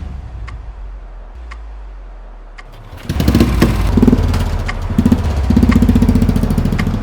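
Motorcycle engine starting: a low hum with a few clicks, then the engine catches suddenly about three seconds in and is revved up and down loudly.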